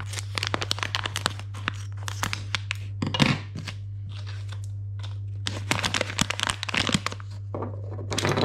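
Plastic resealable packet crinkling and crackling as it is cut open with scissors and handled, in two spells with a quieter gap between. Near the end, a clatter as the plastic mount parts drop onto a wooden tabletop.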